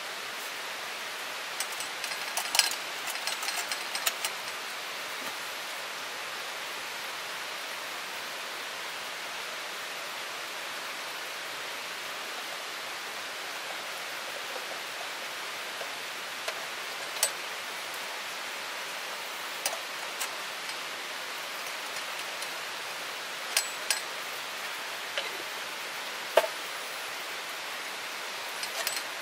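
Steady rushing of a mountain stream, with a few sharp clicks and knocks on top: a cluster a couple of seconds in, then single ones scattered through.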